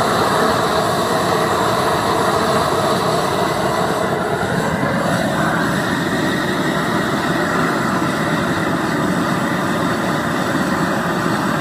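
LPG gas burner with a 45 mm nozzle firing steadily into a stacked-brick forge: a loud, even rush of flame that does not change, as the forge brings a steel crucible of aluminium up to pouring temperature.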